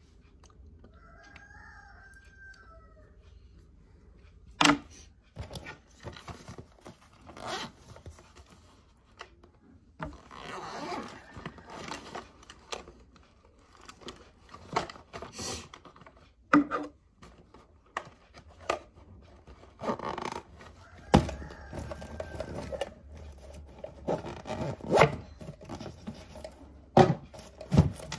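A zippered handbag being handled and rummaged through. Rustling and scraping, with many sharp clicks and knocks from items and the bag's fittings.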